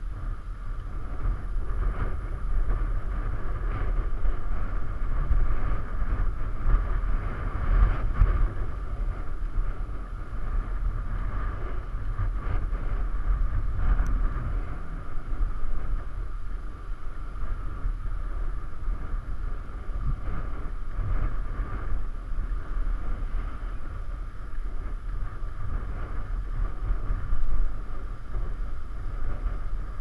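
Wind buffeting the microphone of a GoPro on a moving bicycle: a steady low rumble that swells and eases in gusts.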